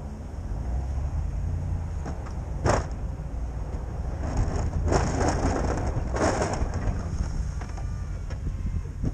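Pickup truck engine running steadily under the plowing, with wind on the microphone, and a few short noisy bursts from the V-plow working the snow: one about three seconds in, then a longer spell around five seconds and another around six.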